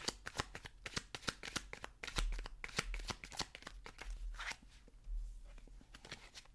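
A deck of oracle cards being shuffled by hand: a quick, uneven patter of card flicks and slaps, busiest in the first few seconds and thinning out near the end.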